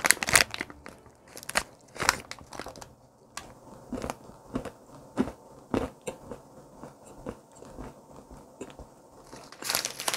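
Biting into and chewing a sugar-dusted stollen financier studded with nuts: irregular sharp crunches as the nuts crack between the teeth. Near the end the paper wrapper rustles.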